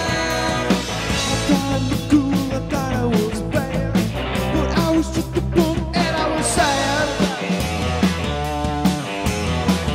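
Rock music with singing and a steady beat.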